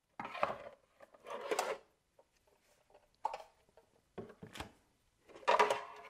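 Hard plastic vacuum parts and a plastic wall-mount rack being handled on a wooden workbench: about five short, irregular bursts of clunks, scrapes and clicks, the loudest near the end.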